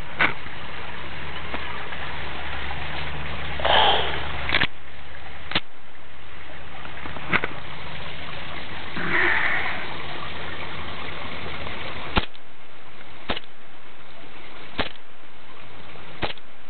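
Gas blowback airsoft pistol firing single shots: about eight sharp pops spaced one to several seconds apart, with two short hissing bursts between them. The pistol's full-auto no longer works.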